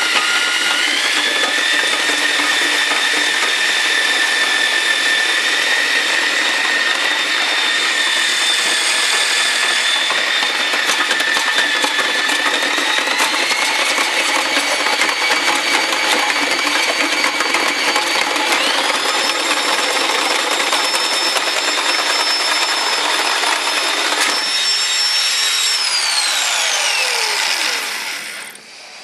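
Heavy-duty half-inch corded drill driving a copper wire stripper, its motor running with a high whine. The whine steps up in pitch three times as the drill speeds up, then winds down and stops near the end.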